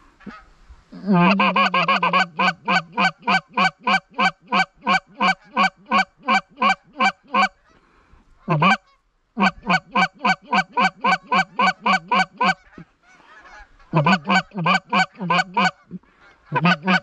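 Hand-blown Canada goose call giving a long honk, then rapid clucks at about four a second in long runs, breaking off around 8 seconds and again around 13 seconds. This hurried clucking is used to work an incoming flock of Canada geese.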